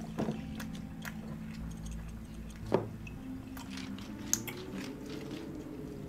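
Quiet show audio of a drink being prepared: a few sharp clicks and soft wet handling sounds over a low steady hum.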